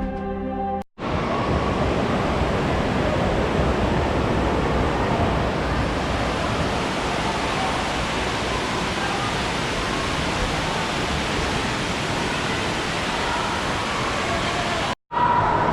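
Steady rushing-water noise of a water-park slide, an even hiss without tones or rhythm, cut off abruptly near the end.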